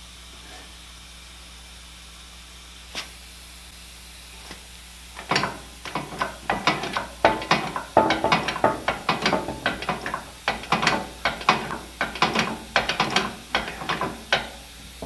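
Hand-pumped 2-ton hydraulic engine hoist working, its lift chain and hook clinking in a rapid, irregular metallic clatter from about five seconds in. Before that there is only a single click.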